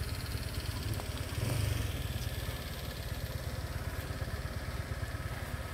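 A small engine idling: a steady low rumble with a fast, even pulse.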